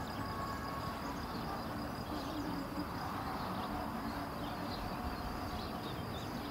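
Outdoor ambience: a steady low rumble with faint, scattered high bird chirps.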